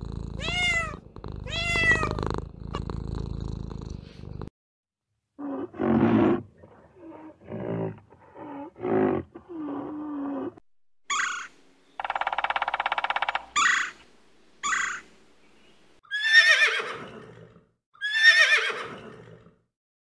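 A string of animal calls: a cat meows twice over a steady purr, then a run of short low grunts, then short high calls and a buzzing trill, and near the end two long whinnies from a horse, each falling in pitch.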